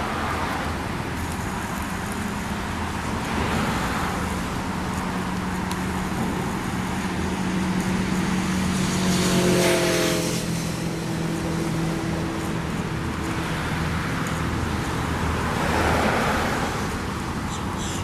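Road traffic: a steady engine hum with vehicles passing, swelling three times, loudest about halfway through.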